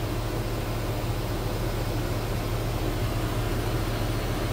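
Steady mechanical hum with an even hiss, unchanging throughout, with no separate knocks or grinding contact.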